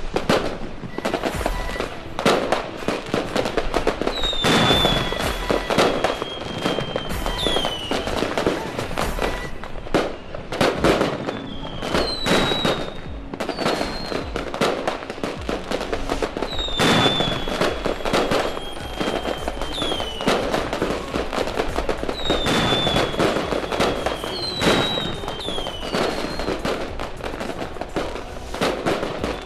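A large fireworks display: continuous bangs and crackling bursts, with several long whistling tones that slowly fall in pitch.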